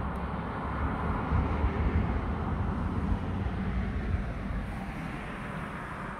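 A 2017 Blue Bird Micro Bird small school bus and a couple of cars driving past: engine rumble and tyre noise swell over the first three seconds, then fade as they move away.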